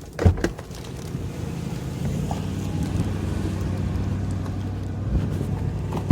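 A clunk as the rear door latch of a Lexus GX 470 releases and the door opens, then the SUV's 4.7-litre V8 idling steadily, its hum growing louder over the first two seconds. There are a couple of light clicks near the end.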